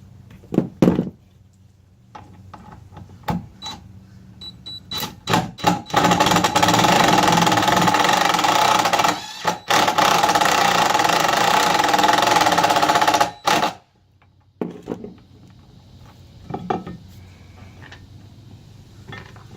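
Power drill driving a screw into the boat's deck for a trolling-motor quick release plate: a few short trigger spurts, then a long steady run with one brief pause near the middle, stopping about two-thirds of the way through. A couple of sharp knocks come about a second in.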